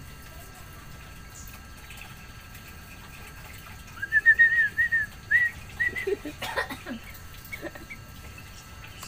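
A small bird gives a quick run of about ten short, high chirps, lasting under two seconds, about four seconds in. It is followed by a brief patch of rustling and scuffling.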